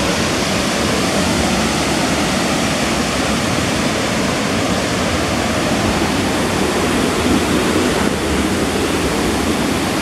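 Large waterfall, about 60 metres high, in heavy flow, plunging into its pool: a loud, steady rush of water.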